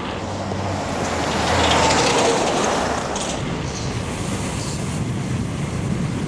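Wind rushing over the microphone, with tyre noise, as a loaded touring bicycle rolls downhill at speed. It swells loudest about two seconds in.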